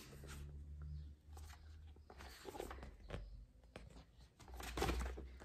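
Soft paper rustling and handling clicks as a book and a paper card are turned over by hand, louder for a moment near the end, over a faint steady low hum.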